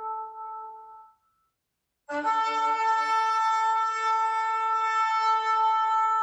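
A shofar blast fading out about a second in, then after a short silence a second long, steady shofar blast that opens briefly on a lower note before jumping up to its held pitch.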